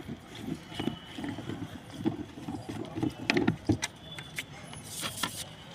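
Irregular knocks, taps and clicks of hand work, with a short hissing burst about five seconds in.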